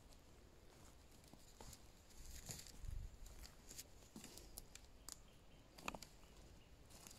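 Near silence with faint, scattered crackles and rustles of forest leaf litter and twigs, a few sharper ones near the end.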